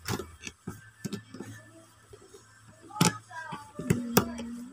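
Pliers clicking and scraping on a potentiometer's mounting nut and the metal front panel as the nut is tightened: a handful of sharp clicks, the loudest about three seconds in and two near the end.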